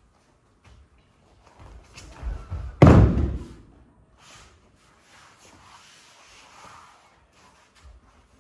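A judoka thrown onto the tatami and landing in a breakfall with one loud slap about three seconds in, after a few softer thuds of footwork on the mat.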